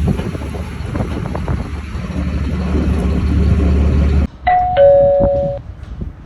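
An engine running steadily with a low hum cuts off abruptly about four seconds in. It is followed by a two-note ding-dong chime, a higher tone then a lower one, lasting about a second.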